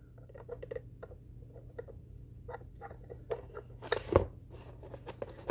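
Small clicks and taps from a bent metal wire light-pad stand being pushed into its plastic holders. The clicks are sparse at first and come thicker and louder from about three seconds in.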